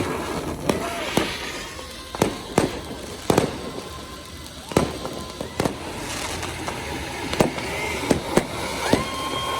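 New Year's fireworks and firecrackers going off: about ten sharp bangs at irregular intervals. In the second half, a held whistling tone and short gliding whistles sound among the bangs.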